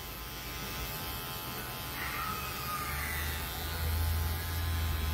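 Electric hair clipper running with a steady buzz as it cuts short hair around the ear, growing louder about three and a half seconds in.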